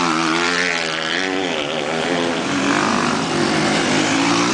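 Off-road motorcycle engine running hard on a dirt track, its revs rising and falling as the rider works the throttle.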